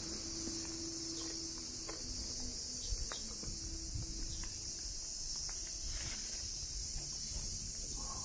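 Steady, high-pitched chorus of cicadas, with a few faint clicks beneath it.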